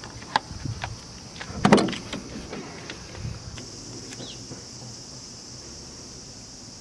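A truck's cab door being opened: a few sharp clicks from the handle and latch, then a louder clunk a little under two seconds in, and a few lighter knocks as someone gets in.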